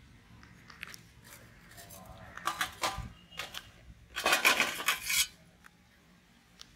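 Metal clinking and scraping against a large aluminium cooking pot: a few light clicks, a couple of clinks in the middle, then a louder scrape lasting about a second.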